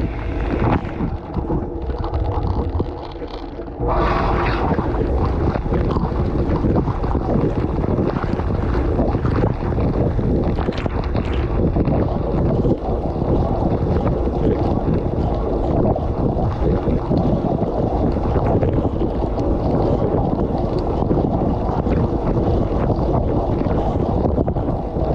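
Dishwasher spray arms jetting water over the dishes and racks, heard from inside the tub as a dense, steady rush of spray. The spray thins out briefly near the start and comes back at full strength about four seconds in.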